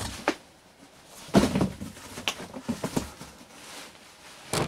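Cardboard shipping boxes being shoved and moved about, with irregular knocks and scrapes. The loudest knock comes about a second and a half in, and another sharp one comes near the end.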